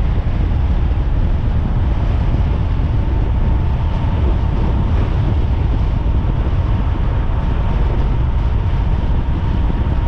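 Heavy wind buffeting on the microphone from riding a 72-volt electric bike at high speed, with a thin, steady electric-motor whine running underneath.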